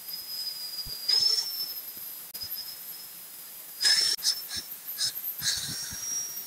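Angle grinder running with a steady high whine. Short bursts of gritty hiss come as the steel knife blade is pressed against the spinning disc, the loudest about four seconds in.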